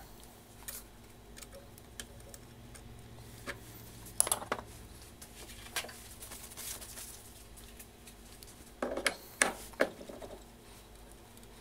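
Light metal clinks and knocks as a T-handle hex key and the parts of a lathe milling attachment and machinist vise are handled and fitted together, louder around four seconds in and again around nine seconds in.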